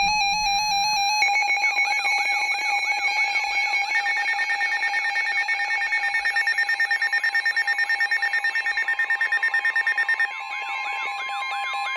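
Weather alert radios sounding their electronic alarms for a severe thunderstorm warning. Several alarms overlap: steady beeping tones with repeated rising chirps, a fast pulsing beep through the middle, and a steady tone near 1 kHz, typical of the NOAA weather radio warning tone, joining in the second half.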